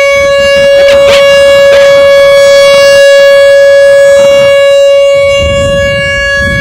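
Rotating outdoor tornado warning siren sounding its test signal, one loud steady tone that swells and eases as the spinning horn turns.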